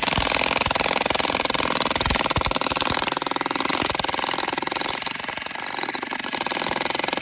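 Two jackhammers hammering steadily into a geode-bearing wall, a fast, even rattle of blows with a few heavier thuds in the first few seconds.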